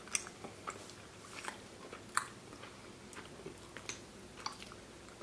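Quiet chewing of mouthfuls of soft pasta, with scattered small clicks; the sharpest click comes about two seconds in.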